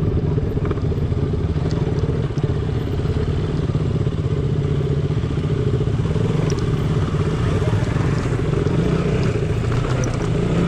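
Motorcycle engine running at a steady, even speed, with a few light clicks and rattles over it.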